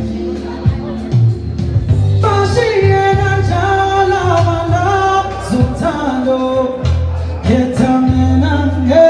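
Male vocalist singing live into a microphone, holding long notes that bend and slide in pitch, over musical accompaniment with a steady low bass.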